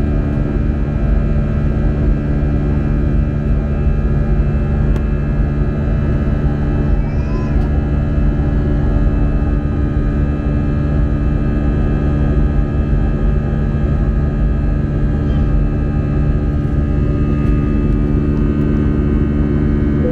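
Cabin noise of an Airbus A320 in its climb after takeoff, heard inside the passenger cabin: the jet engines and airflow make a steady, loud drone with several constant hums and whines, unchanging throughout.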